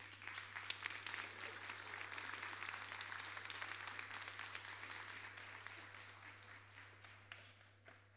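Audience applauding, starting at once and fading away gradually over about seven seconds.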